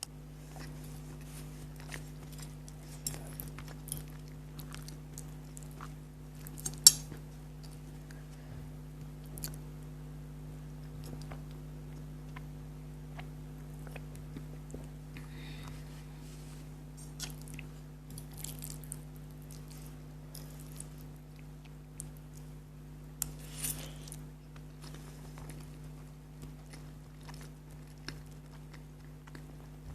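Close-miked chewing of spicy noodles, with scattered small clicks and clinks of utensils and dish. One sharp click about seven seconds in is the loudest. A steady low hum runs underneath.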